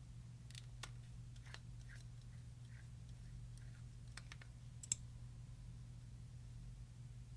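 Scattered soft clicks and small taps of hands working clear slime and makeup, with one sharper click about five seconds in, over a steady low hum.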